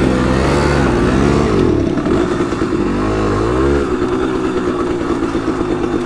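Simson moped's two-stroke engine revving up and down several times, then running at a steady speed from about four seconds in.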